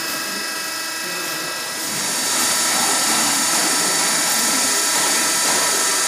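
Hydraulic baling press running: a steady machine whine made of many high fixed tones over a hiss, growing louder and brighter about two seconds in.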